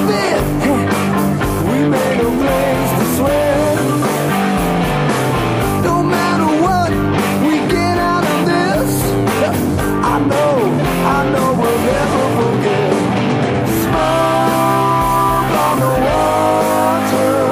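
Rock instrumental: an electric guitar plays a lead line full of bends and vibrato over a backing track of bass and drums, settling into held notes near the end.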